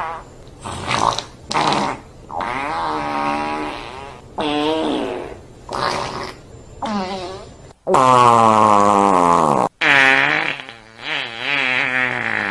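A rapid run of about nine loud farts, each a pitched blast that wobbles in pitch, separated by short gaps; the longest and loudest comes about eight seconds in. Sold as diarrhea farts.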